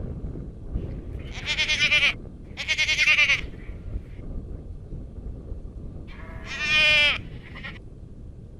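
Garut goat bleating three times: two quavering bleats close together, then a third, slightly shorter, a few seconds later.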